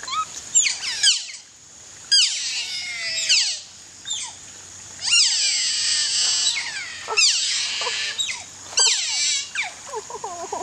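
A group of otters calling: many high squeaks and chirps that fall in pitch, overlapping in bursts of a second or two with short gaps between.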